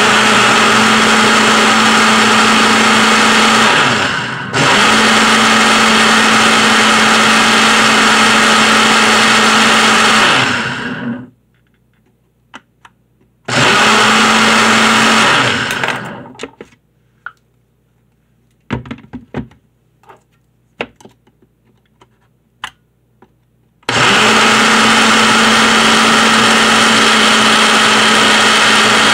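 Ninja blender motor running, blending a cut-up raw potato with juice into a thick liquid. It runs in long bursts: it dips briefly about four seconds in, stops for about two seconds, then later for about seven seconds, with a few light clicks and knocks in that pause, and starts again near the end.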